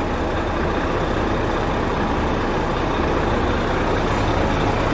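Volvo FH13 truck's 13-litre inline-six diesel running steadily, with no change in speed. The earlier grinding and knocking from the fan drive are gone now that the fan hub bearing and viscous fan clutch have been replaced.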